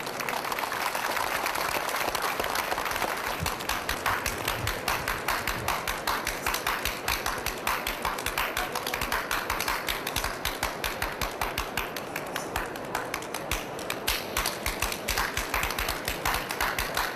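Rhythmic hand clapping by two Kandyan drummers, a fast, steady run of sharp claps that settles into about four to five a second near the end.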